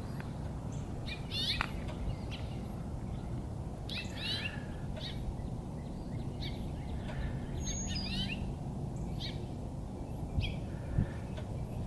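Wild birds chirping in short, scattered calls every second or two, over a steady low background rumble.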